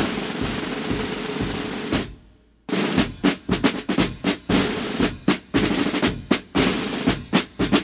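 Military band snare drums playing a roll for about two seconds, then a brief pause, then the drums striking up a marching cadence of sharp, evenly spaced strokes.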